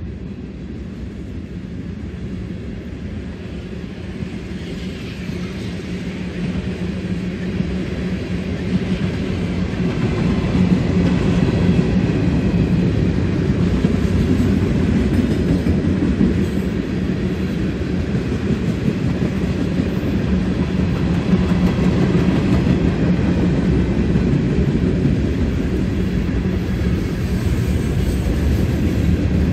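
Freight train cars rolling past at speed: a steady low rumble of steel wheels on the rails. It grows louder over the first ten seconds or so, then holds steady.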